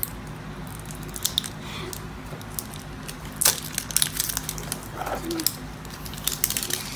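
Fingernails scratching at and peeling the paper sticker seal off a small plastic capsule toy egg, with scattered light clicks and taps of the plastic. The loudest scrape comes about halfway through.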